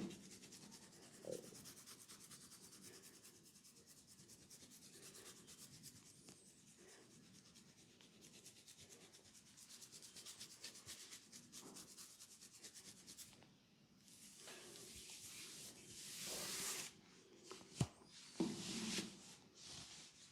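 Soft rubbing and scratching of hands massaging a head, in quick repeated strokes. Several louder swishing strokes come near the end, with one sharp click among them.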